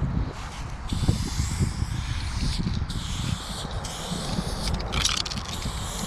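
Aerosol spray-paint can hissing in repeated spurts of about a second as black paint is laid on, with the strongest burst about five seconds in. An uneven low rumble runs underneath.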